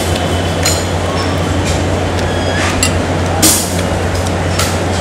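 Restaurant dining-room noise: a steady low hum and hiss, with scattered sharp clinks of plates and cutlery, about five of them, the loudest a little past the middle.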